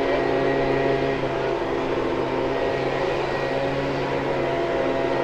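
Steady mechanical hum of a machine running at an even speed: a few unchanging low tones over a hiss of street noise.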